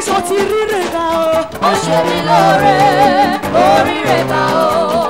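Live gospel praise music: a band plays a quick dance beat with percussion and bass under a lead voice singing a wavering melody.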